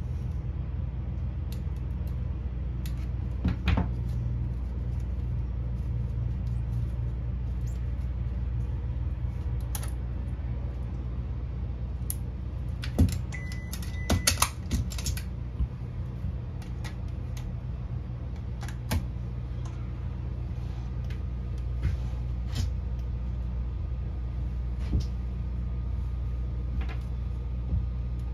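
Small clicks and taps of fiber-splicing tools being handled, with a cluster of clicks and a short beep about halfway through, over a steady low hum.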